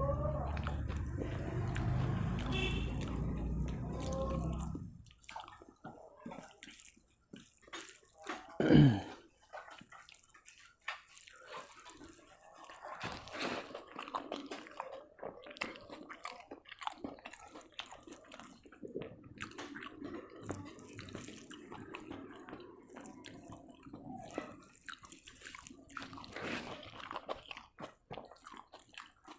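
Close, wet eating sounds: a hand squishing and mixing rice with dal and curry, with soft clicks of chewing and smacking. About nine seconds in there is one short, loud, falling pitched sound, and a low steady hum underlies the first few seconds.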